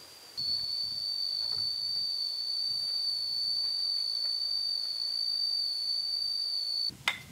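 An insect calling with one steady, high-pitched whine that starts about half a second in and stops suddenly near the end, followed by a single sharp knock.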